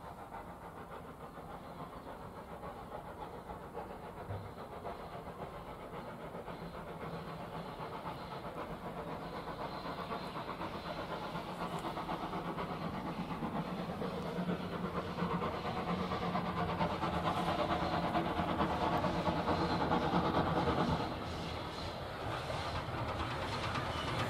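Steam locomotive approaching with a train, its rhythmic exhaust beats growing steadily louder as it nears, with a slight drop in level about three seconds before the end.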